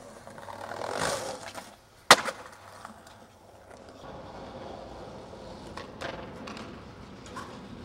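Skateboard wheels rolling on concrete, with one sharp, loud clack of the board about two seconds in, then steady rolling with a few light clicks of the board.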